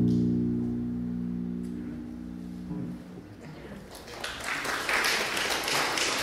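Electric bass guitar's closing notes ringing out and fading away over about three seconds, then an audience applauding from about four seconds in.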